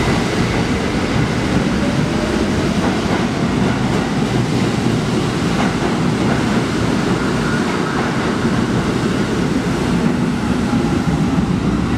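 R68 subway train pulling out of the station and running away along the track: steady, loud noise of steel wheels on the rails and the moving cars.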